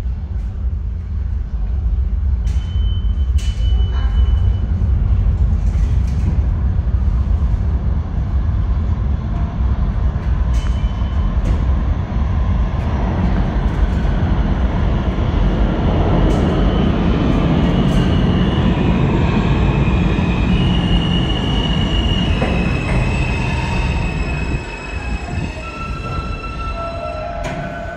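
R160 subway train running into the station and braking to a stop: a heavy steady rumble of wheels on rail, with a few brief high squeals early on and many overlapping high-pitched brake and wheel squeals from about halfway. The rumble drops away a few seconds before the end as the train comes to rest.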